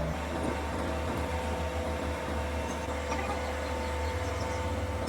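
A machine running steadily with an even hum, and a single sharp knock near the end.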